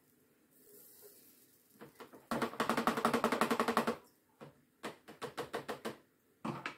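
A crêpe spreader rattled and tapped rapidly in a plastic tray of water, a fast clatter lasting under two seconds, then a lighter run of clicks and one short knock near the end; the spreader is being shaken off so it can drain before the next crêpe.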